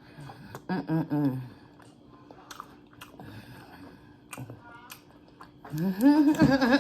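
Close-miked chewing of crispy fried bull testicles: wet mouth sounds with scattered sharp crunches and clicks. A short hum of voice about a second in and a louder vocal sound near the end.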